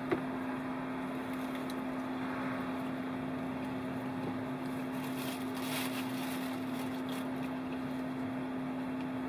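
A car running while parked, heard from inside the cabin as a steady hum with one constant low tone and a faint high whine.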